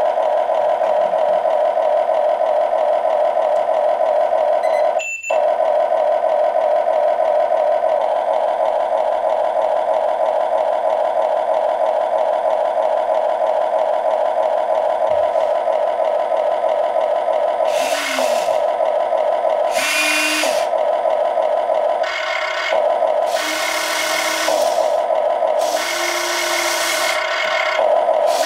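Huina FM 1580 RC excavator's sound module playing a steady, buzzing simulated engine drone through its small speaker, with one sharp click about five seconds in. From about eighteen seconds in, the model's electric motors whir in repeated bursts of two to three seconds as the arm and bucket are worked from the transmitter.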